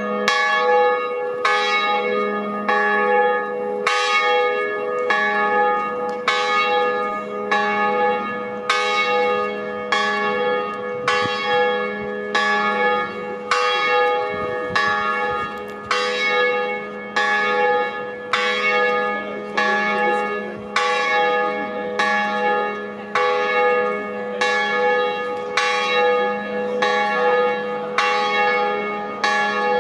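Cathedral bells ringing in an even, unbroken succession of strikes, about one every three-quarters of a second, each stroke ringing on into the next so the hum never dies away.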